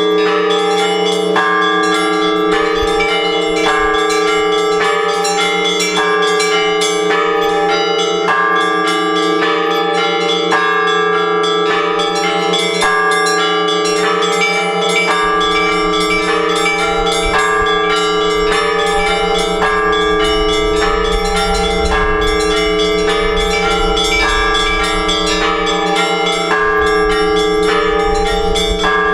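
Orthodox church bells ringing a peal: several smaller bells struck quickly in a repeating pattern over the long, steady hum of the larger bells.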